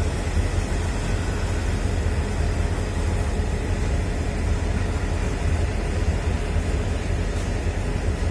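Steady low rumble of a freight train's open wagons rolling slowly past.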